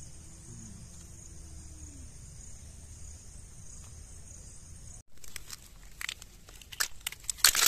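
Crickets chirping in a steady high trill, which stops abruptly about five seconds in. Then a run of sharp clicks and crackles, loudest near the end: boiled setua (freshwater mussels) being handled and shelled.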